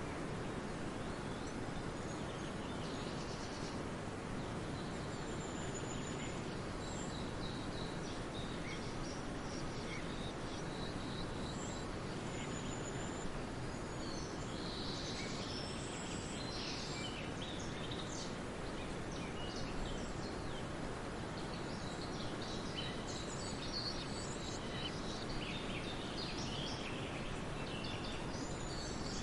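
Small birds chirping, short high calls coming in clusters that grow busier about halfway through, over a steady background hiss.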